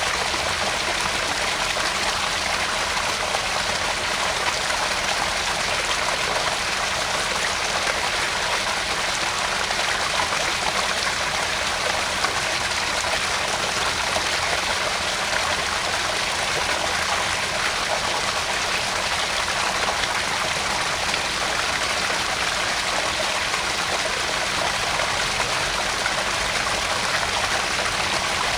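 Small garden pond waterfall: water spilling steadily into a pond, an even splashing trickle.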